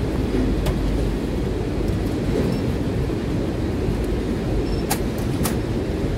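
Steady low rumble of warehouse machinery at a packing station, with a few sharp clicks, two of them close together near the end.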